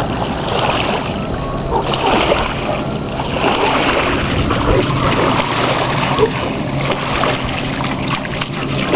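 A large dog wading and pawing through shallow lake water at the shoreline, with steady splashing and sloshing as its legs churn the water.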